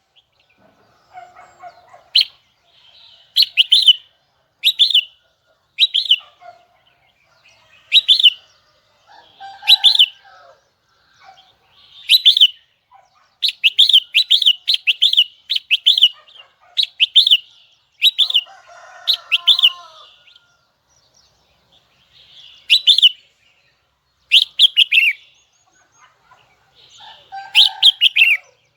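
Red-whiskered bulbul singing: short, loud, sharp phrases repeated about once a second, with a quick run of several phrases around the middle and a few pauses of a second or two.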